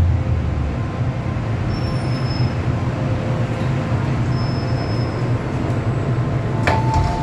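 MTR M-Train running noise heard inside the car: a steady low rumble of wheels on track as the train comes into a station. A sharp click comes near the end, followed by steady higher tones.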